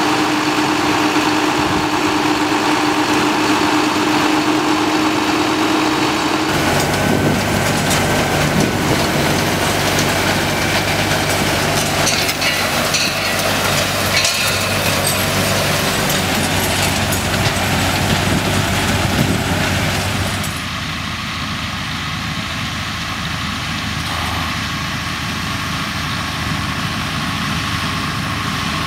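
John Deere tractor engine and a trailed three-row sugar beet harvester running steadily as they lift beet. The sound changes abruptly about six seconds in and again near the end. The first part carries a steady hum, the middle a low engine drone, and the last part is a little quieter.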